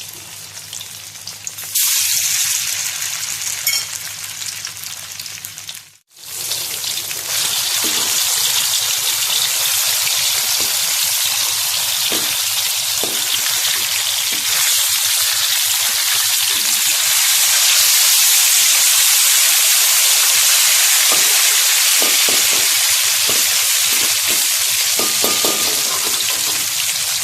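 Sardines frying in hot oil, a loud, steady sizzle that breaks off for a moment about six seconds in, then resumes.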